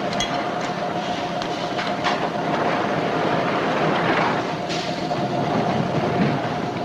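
Subway car running, heard from inside: a steady rumble with a steady whine over it and a few sharp clacks from the wheels.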